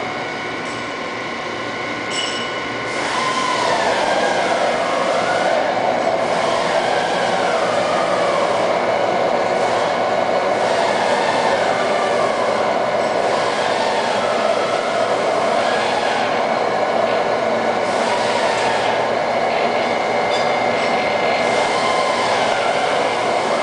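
Cincinnati Gilbert horizontal boring mill running: a steady machine hum with a constant high whine. Other tones slide up and back down in pitch every few seconds, and it gets louder about three seconds in.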